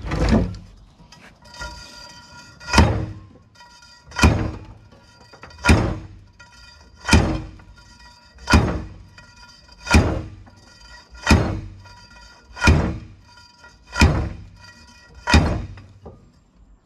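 A heavy steel pipe slammed down again and again as a slide hammer over a Jeep Wrangler axle shaft, driving the bearing retaining ring onto the shaft cold. There are about a dozen blows, roughly one every second and a half. Each blow is a hard thunk followed by a ringing metallic tone.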